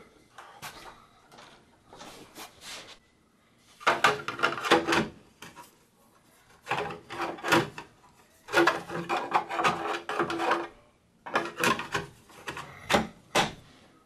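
Phillips screwdriver turning a screw into a treadmill's plastic end cap: scraping, creaking turns in four spells of a second or two each.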